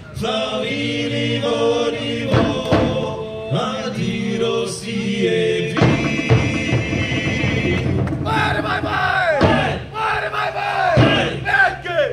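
Polynesian show music with chanting: long held chanted notes, then from about six seconds rapid percussion under loud shouted calls that slide down in pitch.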